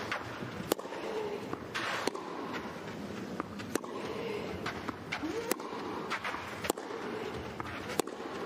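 Tennis rally: a ball struck by racket strings about every one and a half seconds, six sharp hits traded back and forth, over a steady hum of the indoor arena crowd.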